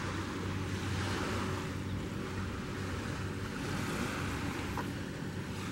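Steady wind blowing across a compact camera's microphone, with a low steady hum underneath.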